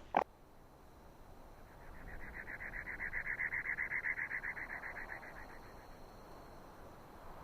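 An animal call: a rapid pulsed trill of about ten pulses a second, fairly high in pitch, swelling and then fading over about three and a half seconds.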